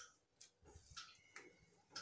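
Faint light clicks, about five in two seconds, from hands peeling a banana; two of them ring on briefly.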